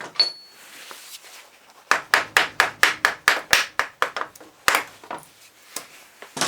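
A short metallic ping, then a quick run of about a dozen sharp metal taps, around five a second, and a few single knocks: metal being struck while a starter motor is worked on.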